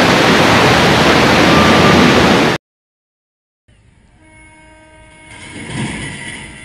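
A cargo ship launched sideways into a canal: a loud, even rush of displaced water and spray that cuts off abruptly a little over two seconds in. After a second of silence, quieter steady horn tones sound, with a swell of low rumble near the end.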